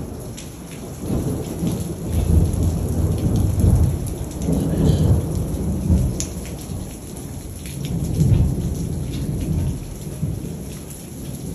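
Thunder rolling in deep rumbles that swell and fade twice, over steady rain with the patter of falling drops.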